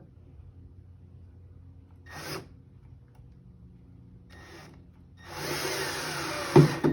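Milwaukee cordless drill driving a small screw into wood: two short trigger bursts, then a longer run of about a second and a half. The run ends with a sharp knock, the loudest moment.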